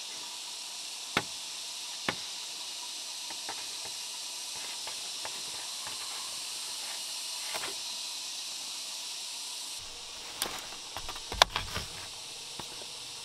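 Sharp clicks and snaps of squash vines and fruit being handled on a bamboo trellis over a steady high hiss: two clicks early on, then a cluster of snaps near the end as a hanging squash is gripped.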